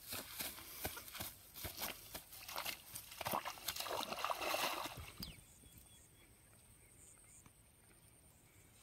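Rustling, slapping and sloshing at the water's edge as a freshly caught rohu flaps in the wet grass and the angler moves through grass and shallow water. The sounds are loudest about three to five seconds in, then it goes quiet.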